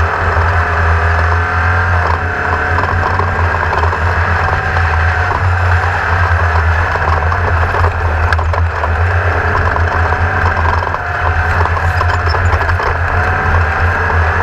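Onboard sound of a Class 1600 off-road race buggy under way: its air-cooled Volkswagen 1600 flat-four running hard, its pitch wavering up and down with the throttle, over constant rattling of the chassis on rough ground.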